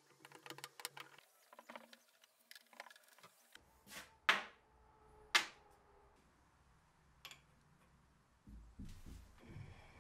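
Small metallic clicks and scrapes of a screwdriver working a set screw in the screw press's steel collar, then two sharp knocks about a second apart as small steel parts are set down on a wooden bench. Near the end comes a low rumble as the press's T-handle is spun.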